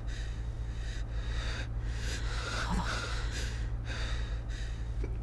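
A person breathing heavily, with audible rushes of breath about once a second over a low steady hum.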